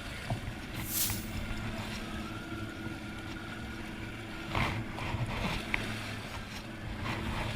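Boat engine running steadily at trolling speed, a low even hum, with water and wind noise and a couple of brief whooshes, about a second in and again past the middle.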